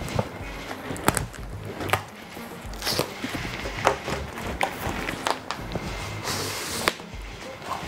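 Background music, with the crackling and rustling of a yellow plastic courier mailer being opened and handled, and sharp crinkles about a second, three seconds and six seconds in.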